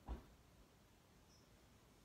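A single brief soft thump just after the start, then near silence.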